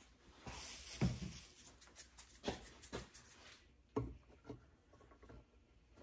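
Faint handling sounds of hands working clay at a potter's wheel: a rustling rub for about three seconds, with several soft knocks against the wheel head and splash pan as clay anchors are pressed down beside an upside-down pot.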